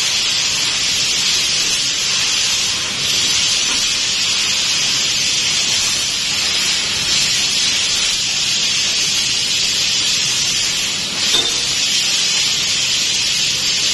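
Steady hiss of a CNC laser cutting machine at work cutting sheet-metal grill patterns.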